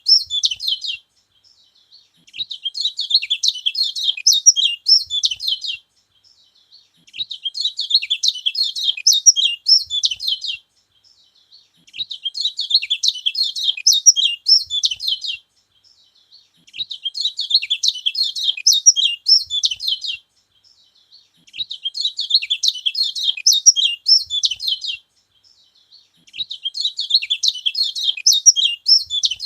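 Kecial kuning, a yellow white-eye, singing: long phrases of rapid, high twittering, each three to four seconds long, broken by pauses of about a second and repeating regularly. This is a song meant to provoke other kecial.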